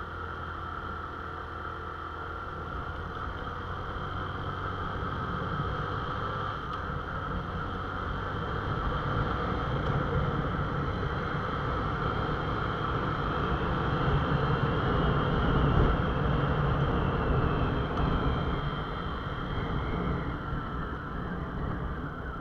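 Small motorcycle engine running while riding, mixed with wind and road noise. It grows louder as it pulls through the middle and eases off near the end as the revs drop.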